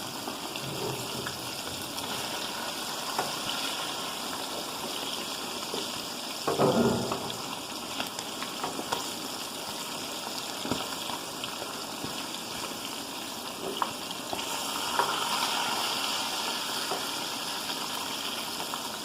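Chicken pieces frying in hot oil: a steady sizzle with scattered small crackles and a brief louder clatter about six and a half seconds in.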